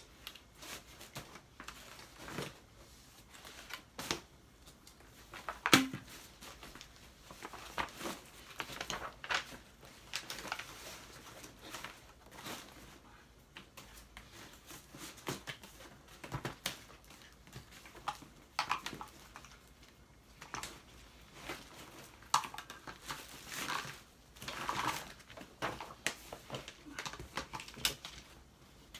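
Handling noise while a Dyson V8 cordless vacuum is assembled: scattered clicks and knocks of its plastic parts being fitted together, with some crinkling of packaging.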